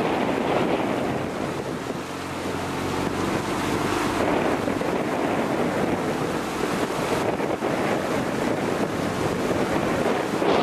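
Wind buffeting the microphone over water rushing past a moving boat, with a low motor hum for a few seconds in the middle.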